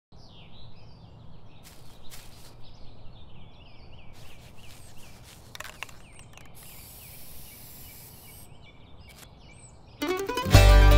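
Small birds chirping over quiet outdoor ambience, with a spray paint can hissing for a second or two around the middle. About ten seconds in, a bluegrass band starts playing suddenly, with banjo, mandolin, guitar and upright bass.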